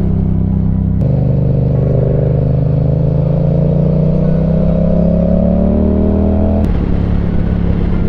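Motorcycle engine heard from the rider's seat: it shifts up about a second in, then the revs climb steadily as the bike accelerates, and drop suddenly about two-thirds of the way through before holding steady.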